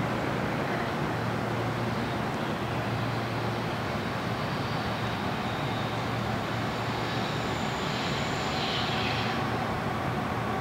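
Steady rumble and hiss of city background noise, with a faint high tone from about seven to nine seconds in.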